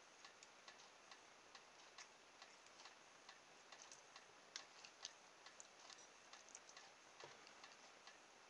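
Near silence with faint, regular ticking, about two to three ticks a second.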